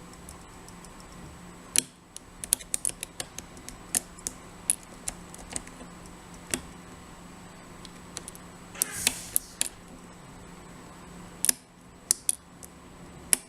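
Lock pick and tension wrench working the pin stack of a euro-cylinder challenge lock: scattered sharp small clicks as pins are lifted and set, some in quick runs, with a brief scraping rustle about nine seconds in.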